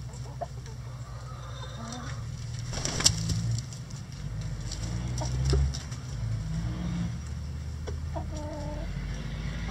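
Bantam chickens clucking now and then, with a short call near the end, over a steady low rumble. A single sharp click about three seconds in.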